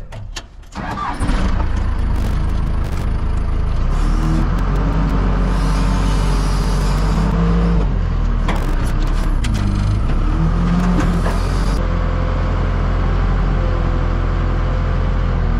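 Tractor engine catching about a second in, then running loudly, its revs rising and falling as it works.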